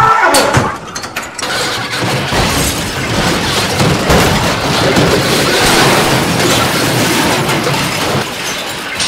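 Mechanical clattering and crashing: a few sharp knocks in the first second or so, then a dense, steady rattling clatter.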